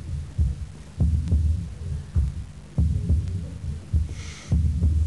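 Deep, slow thudding beats in a heartbeat-like rhythm, heavier beats paired with lighter ones, with a short hiss about four seconds in.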